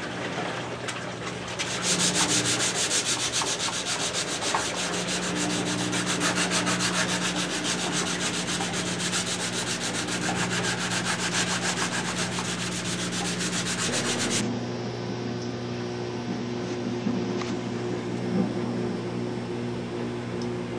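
Hand sanding of a fiberglass repair on a Laser daggerboard tip with folded 220-grit sandpaper: rapid back-and-forth strokes that start about a second and a half in and stop abruptly about two-thirds of the way through. A low, steady machine hum runs underneath throughout.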